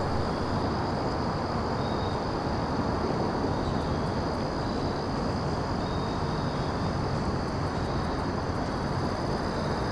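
Wind blowing across the microphone: a steady rushing noise with a deep rumble.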